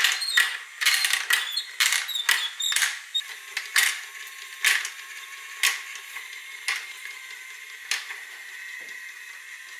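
Marbles clicking against the plastic track and loading cup of a motorised chain-lift marble elevator, the clicks coming fast at first, then spreading out to about one a second and stopping near the end. Under them runs the steady high whine of the elevator's small motor.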